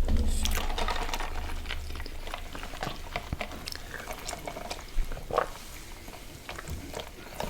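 Close-miked eating sounds: wet chewing with many small irregular clicks and crackles, over a low rumble in the first two seconds.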